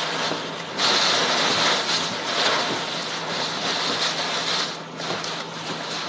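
Violent thunderstorm wind with driving rain: a dense, loud rushing that surges about a second in and dips briefly near the end.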